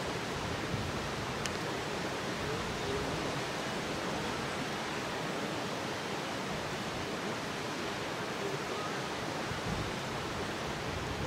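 Steady, even rushing outdoor background noise with no distinct events, apart from one faint click about a second and a half in.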